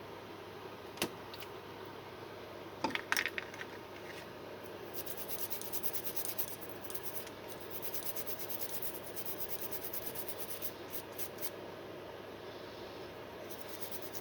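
Fast scratchy rubbing strokes of scrubbing a key fob's circuit board clean with isopropyl alcohol, coming in long runs from about five seconds in. A sharp click about a second in and a short clatter of small clicks around three seconds come before the scrubbing.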